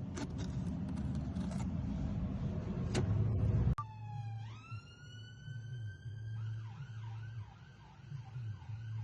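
Scraping and clicking of hand work, cut off abruptly a little under four seconds in; then an emergency-vehicle siren winds up in pitch and goes into a fast warbling yelp, about three cycles a second.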